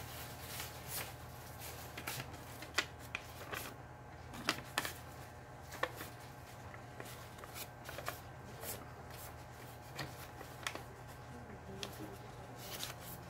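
Paper rustling and crinkling with scattered light clicks and taps, as a paper pattern for a square-to-round transition is handled and worked. A steady low hum runs underneath.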